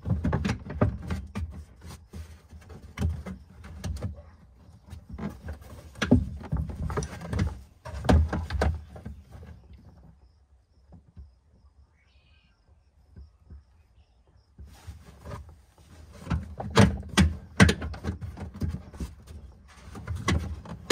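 Plastic cargo-area trim panel being pulled and worked loose by hand: repeated knocks and clicks as the panel and its clips catch on their hooks, with a quiet spell of a few seconds about halfway through.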